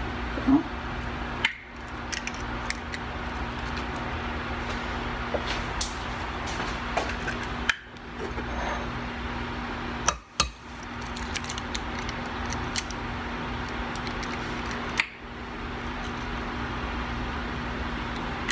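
Steady hum of a fan-like appliance with a faint held tone, under a few light clicks and taps as an egg is separated by hand over a glass bowl. The loudest tap comes about half a second in. The sound cuts out briefly four times.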